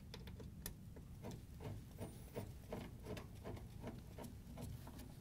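Quarter-inch nut driver turning the mounting screws of a refrigerator water inlet valve into the sheet-metal cabinet: faint, irregular small clicks and scrapes of the driver and the metal parts being handled.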